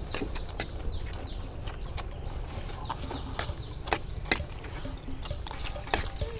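Spoons clicking and scraping against plates of rice as people eat quickly, with sharp irregular clicks throughout. High, short, falling bird chirps repeat several times in the first second or so.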